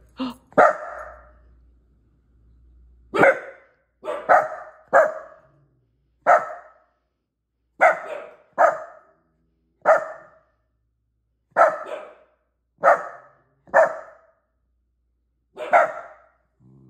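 Miniature dachshund giving short, sharp, separate barks, about fourteen in all, mostly a second or so apart with a gap of about two seconds early on: alert barking at a perceived intruder, defending his territory.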